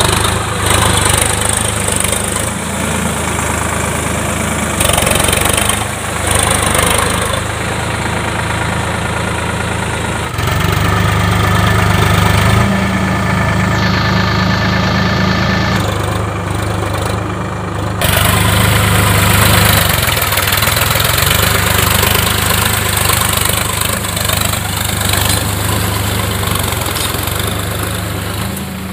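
Sonalika DI-50 DX tractor's diesel engine running steadily under load as it pulls a tined cultivator on steel cage wheels through a flooded paddy. The engine note swells louder about ten seconds in and again a little before twenty seconds.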